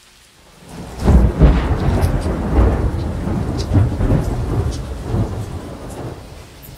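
Rolling thunder: a loud crash about a second in, then a long rumble that slowly fades.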